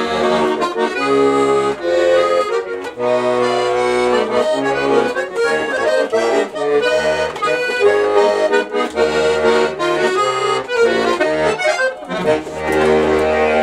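Bayan (Russian chromatic button accordion) playing a song melody over an oom-pah bass-and-chord accompaniment, finishing on a held chord that cuts off just at the end.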